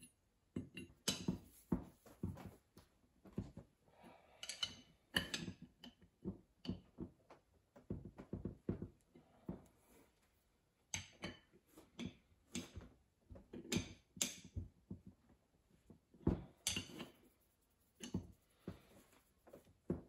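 Many short metal clinks and knocks at irregular spacing as a 5/8 wrench is worked on the pressure relief valve fittings of a Sundstrand Series 15 hydraulic motor, tightening them down.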